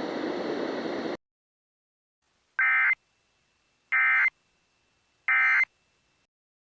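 A steady hiss cuts off about a second in. Then come three identical short bursts of warbling data tones a little over a second apart: the Emergency Alert System end-of-message header, sent three times to close the alert.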